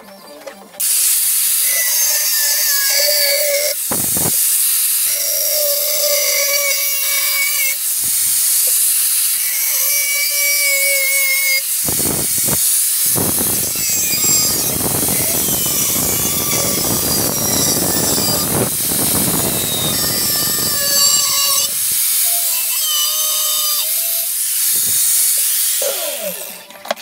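Angle grinder grinding into the steel of an old butcher cleaver blade, starting about a second in, with a high whine that shifts in pitch as the disc bites. The middle stretch is rougher and louder, and the grinder stops just before the end.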